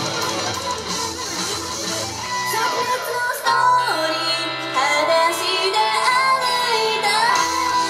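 Upbeat Japanese idol-pop song played over a PA, with young female voices singing over the backing track; the arrangement changes about three and a half seconds in.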